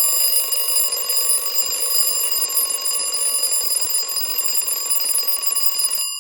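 Alarm-clock alarm ringing continuously at the end of a countdown timer, loud and unbroken, with a rapid rattling edge, easing off slightly near the end.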